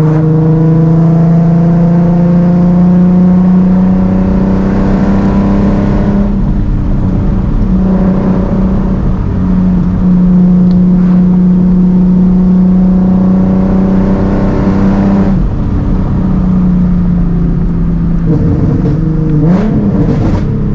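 Nissan 370Z's VQ V6 breathing through a titanium Tomei cat-back exhaust with test pipes, accelerating hard at high revs. The exhaust note holds high and steady, dips briefly three times, and wavers up and down near the end.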